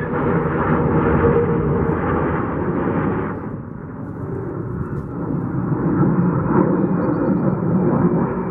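Fighter jet engine noise: a loud, dense rumble from a jet on its takeoff roll, which drops off about three seconds in. It then swells again as an F-22 Raptor flies past, with a faint high whine that slowly falls in pitch.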